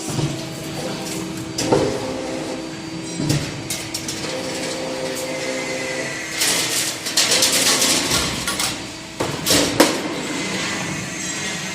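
Automatic wire-hanger bending and welding machine running: a steady machine hum with sharp metal knocks at intervals, and a long hiss from about six to eight seconds in.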